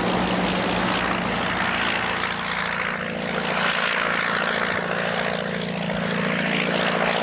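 A de Havilland Gipsy Moth biplane's four-cylinder air-cooled Gipsy engine and propeller run steadily as the aircraft climbs out just after take-off. The engine holds one even note under a rushing propeller noise that swells and sweeps up and down in pitch.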